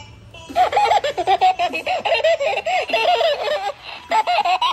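Electronic plush bunny toy giggling from its built-in speaker: a run of high-pitched, child-like laughter with a short break near the end before it starts again.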